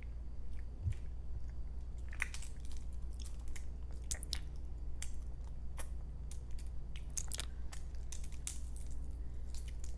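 Close-up wet chewing and mouth clicks of someone eating balut, a boiled duck egg embryo: irregular smacks and clicks, more frequent from about two seconds in, over a steady low hum.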